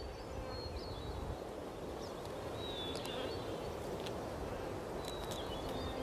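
Steady outdoor background hiss with faint, short high bird chirps scattered through it, several with a small upward flick.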